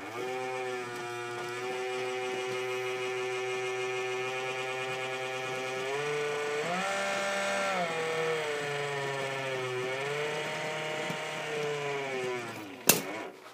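Walthers 90' HO-scale turntable's drive motor whining as the bridge rotates. The pitch rises about six seconds in, holds for a second or two, then falls back, and the whine stops near the end with a sharp click.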